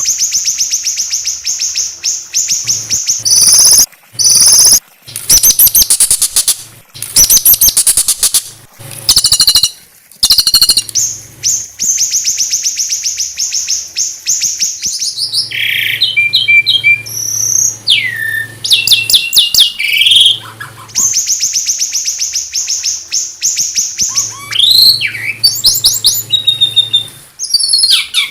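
Small songbirds singing in a bird-song tutor recording: long, very fast, high-pitched rattling trills of a few seconds each, alternating with short whistled slurs and sharp chips.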